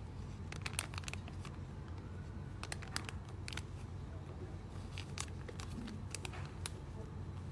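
Foam squishy toys being handled and squeezed, with sharp plastic crinkles and crackles at irregular moments over a low steady hum.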